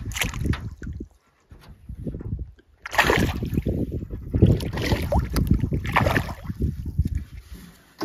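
Knocking and rattling inside an aluminum canoe, with water sloshing against the hull. The clatter is sparse at first and turns dense and loud about three seconds in, then eases near the end.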